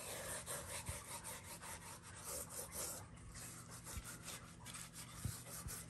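Faint scratchy rubbing of a hand working dry rub seasoning into raw pork side ribs, in quick, uneven repeated strokes.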